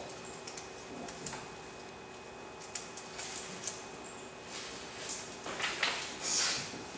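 Pages of a thick book being leafed through by hand: soft paper rustles and small clicks, with louder rustles near the end.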